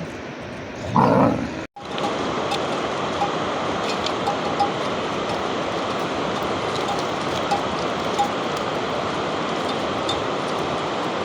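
Steady rain, an even hiss with scattered light ticks, starting after a sudden cut about two seconds in. Just before the cut there is a short, loud sound.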